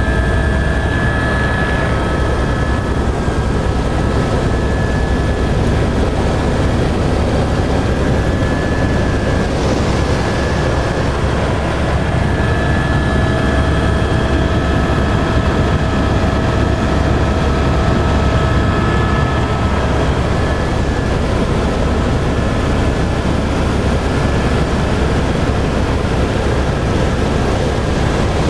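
A vehicle running steadily, a loud constant rumble with faint high whining tones that fade in and out.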